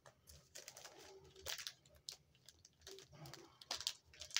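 Clear plastic comic-book bag rustling and crinkling in the hands as it is opened, with scattered small clicks and scrapes.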